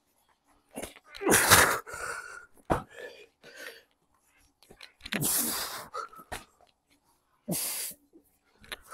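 A man's forceful, explosive exhalations as he works through reps with a 50-pound slam ball: a few loud breath bursts a couple of seconds apart, with a short sharp thud in between.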